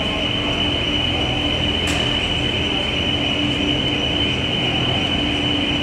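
Steady machine noise: a constant drone with a high-pitched whine and a lower hum running over it, and one brief click about two seconds in.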